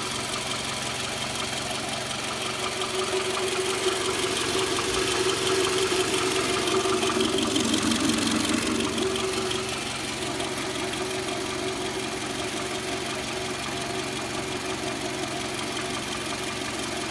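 Toyota Camry XV40's 2.4-litre four-cylinder engine running with a knock, the fault the owner is recording. It gets a little louder for a few seconds in the middle, then settles back.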